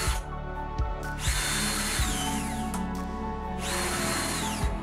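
Cordless drill running in two bursts of about a second each, its motor winding down in pitch at the end of each, over background music with a steady beat.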